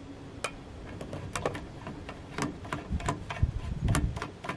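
Irregular clicks and light knocks of hard parts being handled and fitted as a round solar light is mounted on the end of a flagpole section, with a duller low rumble about three seconds in.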